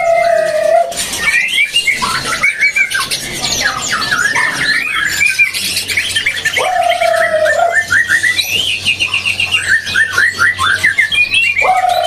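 Many caged songbirds singing and calling over each other: quick chirps, rapid repeated trills and whistled phrases. A lower, held call of about a second comes three times: at the start, about halfway through and at the end.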